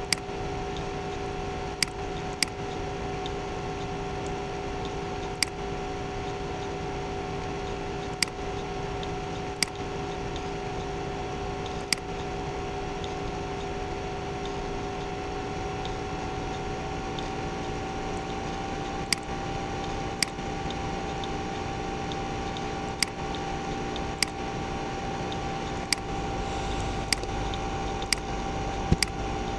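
Computer mouse clicking, sharp single clicks every one to three seconds with a quicker run of them near the end, over a steady hum with a few held tones from the computer.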